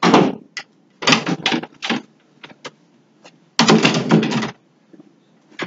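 Clattering and scraping from metal-framed chairs being moved and repositioned, in several irregular bursts with a few sharp clicks between them; the longest burst comes about two-thirds of the way through.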